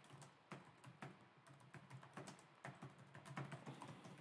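Faint, irregular typing on a laptop keyboard: a quick run of soft key clicks.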